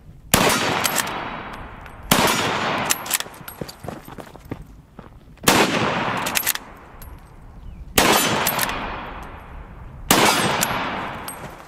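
Gewehr 98 bolt-action rifle in 8mm Mauser firing five shots two to three seconds apart, each ending in a long fading echo. Between shots the bolt clacks as it is worked.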